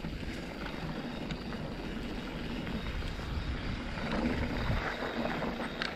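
Wind buffeting the microphone over the rolling noise of a Canyon Torque full-suspension mountain bike's tyres on a dirt forest trail, with a few small knocks from the bike, growing gradually louder as it picks up speed.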